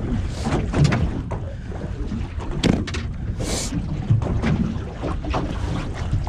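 Wind buffeting the microphone in a steady low rumble, with scattered knocks and rustles as a large samson fish is handled and laid on a measuring mat in an aluminium boat. A short hiss comes about three and a half seconds in.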